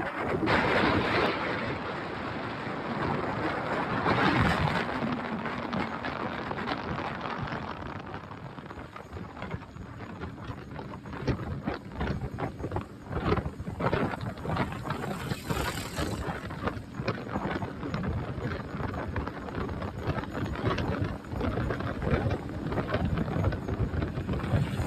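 Wind buffeting the microphone over the steady noise of a moving vehicle on the road, with uneven gusty thumps in the second half.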